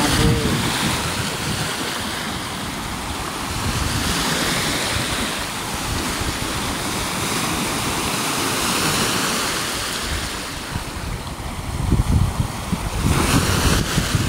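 Small waves washing onto a lake beach, the surf swelling and easing. Wind buffets the microphone, hardest near the end.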